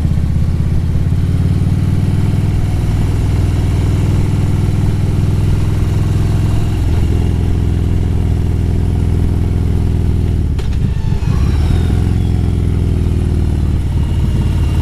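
Harley-Davidson Road Glide's V-twin engine running under way, heard from the rider's camera; its pitch shifts a few times, around three, seven and ten seconds in.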